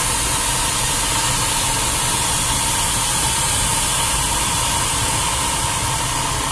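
Steady rush of air past a glider's cockpit in flight, an even, loud hiss.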